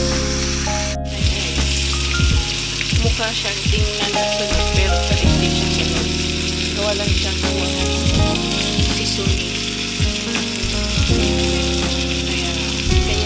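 Yellowfin tuna steak sizzling steadily in butter and oil in a frying pan, with a brief dropout about a second in.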